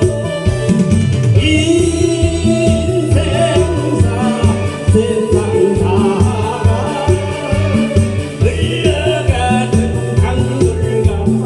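Korean trot song playing with a steady, regular bass beat under a wavering melody line.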